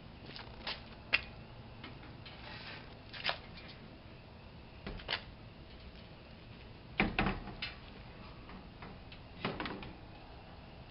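Roof rack being set onto a 1996 GMC Jimmy's roof and shifted into position: scattered clicks and knocks, the loudest a short run of clunks a little past the middle and another near the end.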